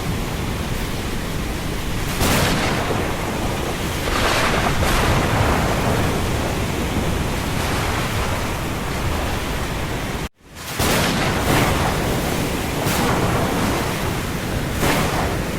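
Thunderstorm of dense, steady rain and wind noise that swells in gusts every few seconds. About ten seconds in it cuts out suddenly for a split second, then fades back in.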